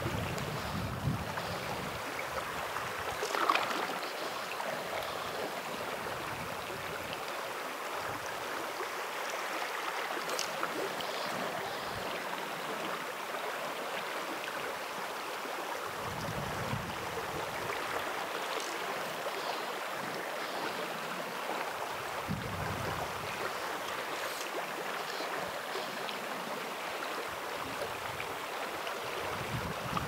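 Steady rush of shallow flowing creek water, with now and then a low buffet of wind on the microphone. One brief sharper knock stands out about three and a half seconds in.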